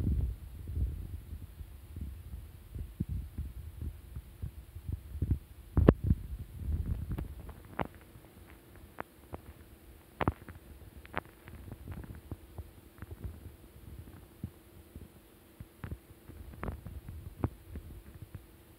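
Handling noise on a handheld recording device: irregular low thumps and rumbles with scattered sharp clicks, the loudest thump about six seconds in. A faint steady hum joins from about eight seconds in.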